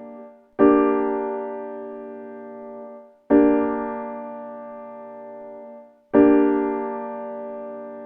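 Piano chords struck one at a time, about every two and a half seconds, three in all, each held and left to fade before it is released.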